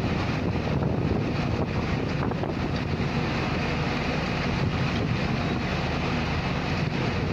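Steady roar of a heavy rainstorm with strong wind, the wind buffeting the microphone.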